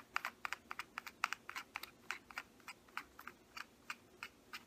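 Twist-lock collar of a Feisol carbon fiber tripod leg being screwed back on by hand: a fast, irregular run of small sharp clicks, about four a second, as the collar is turned down its threads.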